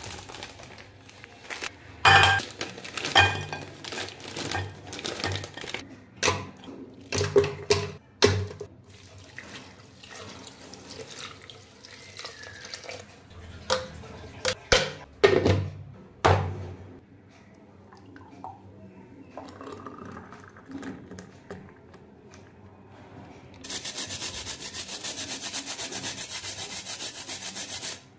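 Kitchen handling sounds: a biscuit wrapper rustling, chocolate sandwich biscuits snapping in a string of sharp cracks, and ice dropping into a plastic blender jar. A little over three-quarters of the way through, the blender starts and runs with a steady, high whir for about four seconds, then cuts off.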